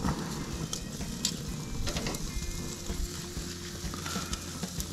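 Ribeye steaks and potato wedges sizzling on the hot grates of a gas grill, a steady hiss with a few sharp crackles and pops.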